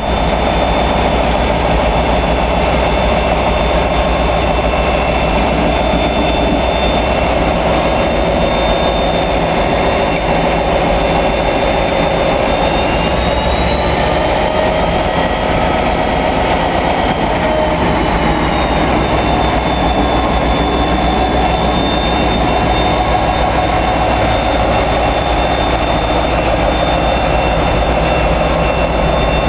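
Class 57/3 diesel locomotive 57314's EMD V12 two-stroke engine running, a loud, steady drone with a high whine. The whine rises in pitch about halfway through and falls back a few seconds later.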